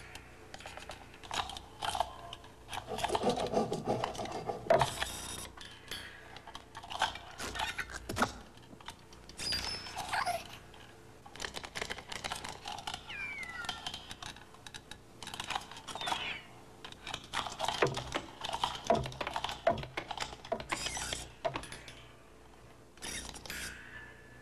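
Cartoon sound effects for animated desk lamps: irregular clicks, taps and creaks of the lamps' spring-arm joints moving, with a few short squeaky glides that rise and fall in pitch.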